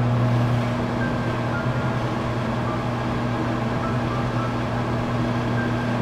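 Microwave oven running: a steady low hum with a fainter hum above it and a light hiss.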